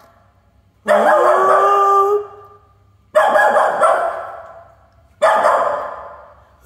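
A small poodle giving three loud, drawn-out barking howls, the first rising in pitch and then held, the next two fading out.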